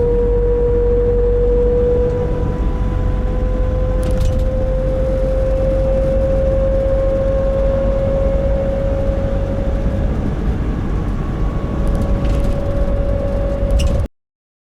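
Nissan NV350 Caravan with a YD25DDTi diesel, driving at light steady throttle: over the road noise a steady 'ko-on' hum rises slowly in pitch, and the sound cuts off suddenly near the end. This hum is the abnormal noise the owner hears at about 1000–1500 rpm and suspects may come from the differential.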